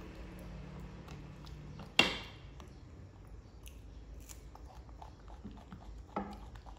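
A young macaque chewing and biting food, with small scattered clicking mouth sounds. A sharp knock with a brief ring comes about two seconds in and a softer one near the end. A low hum stops just before the first knock.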